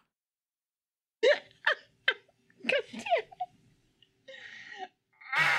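About a second of dead silence, then a person laughing in short bursts, ending in a longer breathy laugh.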